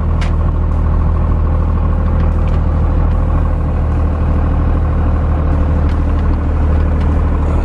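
Cummins diesel engine of a pickup truck running under way, a steady low drone heard from inside the cab, with a faint steady whine above it.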